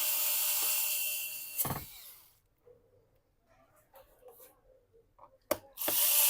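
Electric screwdriver running with a whine, driving a laptop's bottom-cover screws back in: one run of about two seconds at the start that ends in a short knock, faint small taps of handling, then a second run starting near the end.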